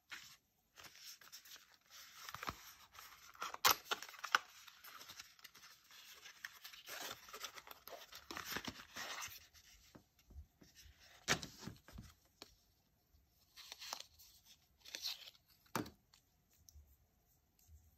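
Packaging of a smartphone box being torn open and handled: tearing and rustling that come and go, with a few sharp knocks.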